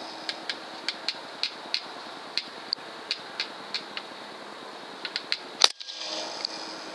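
A single shot from a .22 Hatsan Blitz PCP air rifle, one sharp crack about five and a half seconds in. Before it there is faint, irregular ticking over a steady low hiss.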